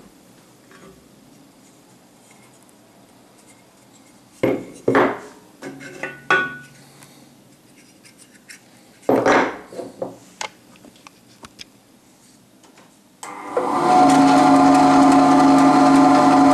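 Wooden blocks knocking and clattering as they are handled and set down on a wooden tabletop. About 13 seconds in, a Scheppach Basa 1 band saw starts up and runs steadily with a humming tone.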